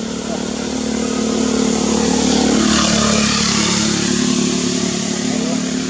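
A motor vehicle's engine passing by, growing louder to a peak about halfway through and then fading.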